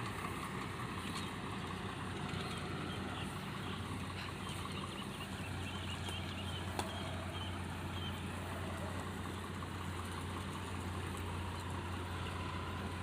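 Combine harvester's diesel engine running steadily with a low drone, which grows stronger about five seconds in, over a constant mechanical clatter.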